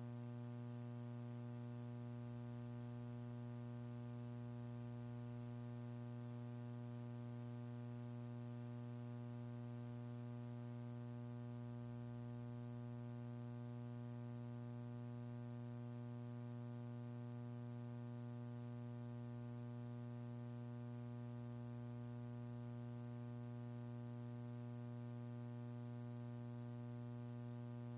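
Faint, steady electrical mains hum with a buzzy stack of overtones, unchanging throughout.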